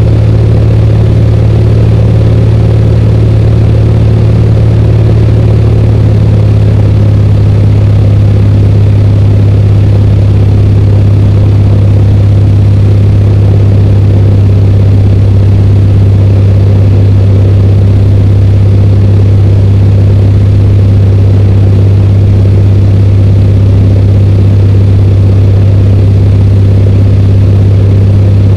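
Single-engine light airplane's engine and propeller running steadily, loud from inside the cockpit. Its deep hum drops slightly in pitch about six seconds in.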